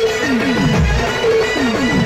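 A Sambalpuri folk drum ensemble plays loud, fast rhythmic drumming. The drums sound in repeated strokes that fall in pitch, several a second, under a held, reedy melody line.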